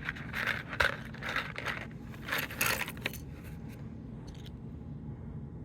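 Small plastic Lego pieces clicking and rattling as they are handled, in a run of short clattering bursts that stop about three seconds in.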